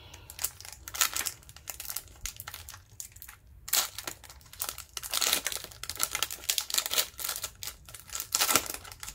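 Foil wrapper of a basketball card pack crinkling and being torn open by hand: a dense run of sharp, irregular crackles that grows louder and busier about a third of the way in.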